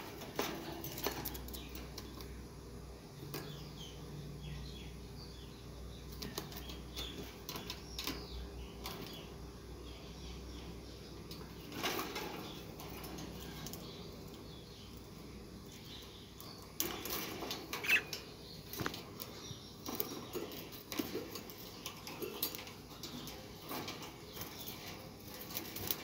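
Budgerigar flapping its wings and clambering on the wire bars of its cage, with bursts of fluttering and scattered clicks and rattles that come more often in the second half. The owner takes the restlessness for anger at being kept alone.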